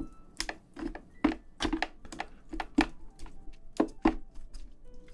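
A spoon mashing and mixing rice inside the shell of a soy-marinated crab (ganjang gejang): an uneven run of short, sharp clicks and taps, about two a second, as the spoon presses against the shell.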